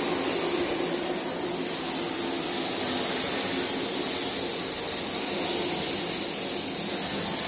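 Steady, loud hiss of a fire hose spraying water onto the fire, with a faint low hum underneath.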